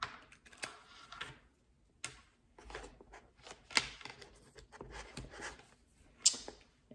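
A plastic USB power adapter and its charging cable being handled: scattered light clicks and rustles, with two sharper clicks, one a little under halfway through and one near the end.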